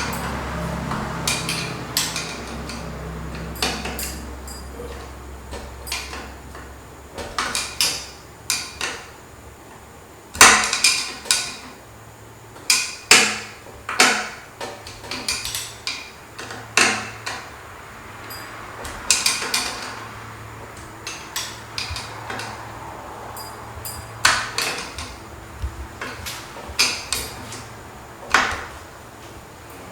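Scattered metallic clicks, taps and knocks of a screwdriver and screws working on a ceiling fan's metal fittings, some in quick clusters. A low hum fades out over the first few seconds.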